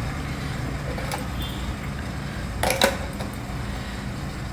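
Water boiling in a steamer pot with a steady low rumble, with light metal clinks of the idli stand and cups being set inside, a faint one about a second in and a sharper one about three seconds in.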